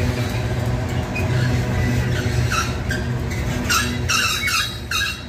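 Freight train rolling slowly through a switch: a steady low rumble of wheels and locomotive, with bursts of high-pitched wheel flange squeal starting about halfway through and repeating every half second or so.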